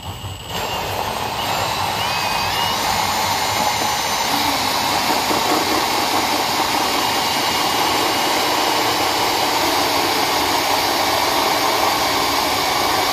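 Cordless drill spinning a hole saw through a plastic car bumper cover, a steady whine and grinding that starts about half a second in, its pitch rising over the first few seconds. The drill is run in reverse so the saw's teeth cut smoothly instead of grabbing and jumping across the paint.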